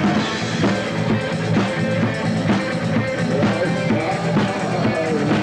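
Rock band playing live: a steady drum-kit beat under electric guitars.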